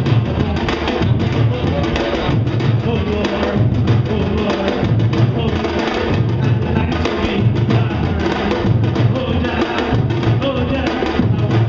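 Samba-reggae drum ensemble playing live: surdo bass drums keep a steady low beat under dense strikes from repenique and timbau drums.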